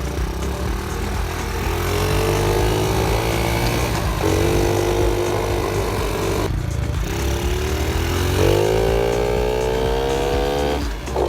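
Honda Z50 minibike's small single-cylinder four-stroke engine, bored out to 88cc, pulling under way. Its note climbs in pitch, drops sharply and climbs again several times as it is ridden up through the gears.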